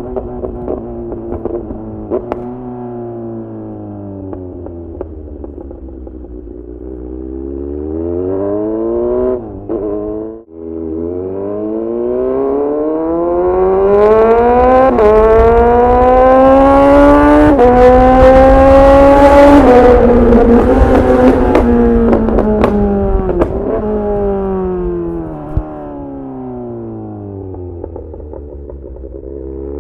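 Kawasaki Z900 inline-four through a full titanium SC-Project exhaust, ridden hard. It winds down off the throttle, then accelerates about halfway through with three quick upshifts, each a sudden drop in pitch about two seconds apart. It winds down again and picks up near the end.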